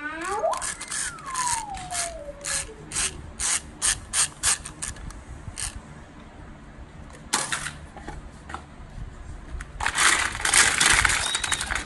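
Ratchet-like clicking from a plastic wind-up toy as its parts are turned in the hands: a string of sharp clicks over the first six seconds, with a falling whistle-like tone near the start. Near the end, plastic toys rattle as a hand rummages through a plastic basket full of them.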